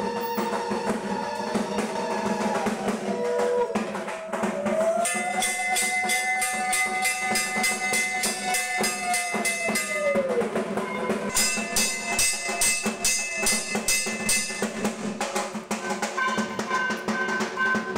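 Music of fast, steady drumming with long ringing tones and gliding notes over it.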